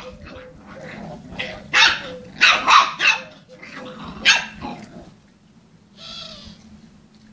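Dog barking: a run of about five sharp, loud barks between about two and four and a half seconds in, quieter afterwards.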